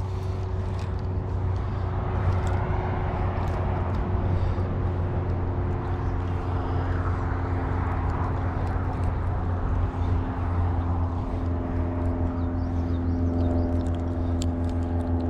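An engine running steadily: a low rumble under a constant hum of several steady tones, whose pitch shifts slightly about twelve seconds in.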